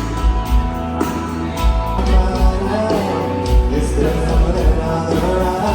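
Country song playing: a man singing over guitar and a steady drum beat.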